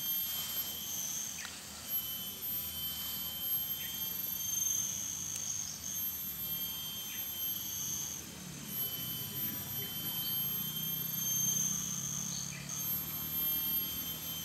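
Insects calling from the pond-side vegetation: several steady high-pitched tones that overlap and swell in and out. A faint low hum lies underneath and grows a little about halfway through.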